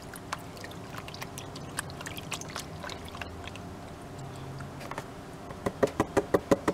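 Plastic gold pan of muddy concentrate being worked in a tub of water, with faint sloshing and small trickling clicks. About five and a half seconds in, a hand starts tapping the side of the pan in a fast, even rhythm of about six knocks a second, settling the heavy material into the corner of the pan.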